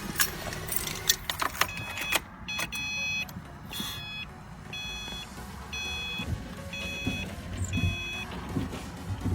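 Car wiper test: a few sharp clicks, then a short high-pitched tone repeating about every 0.8 s, with soft low thumps near the end.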